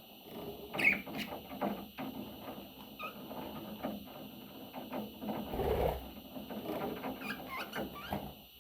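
Budgerigar chirping and chattering in short calls, with scattered small clicks and a brief louder noise about six seconds in.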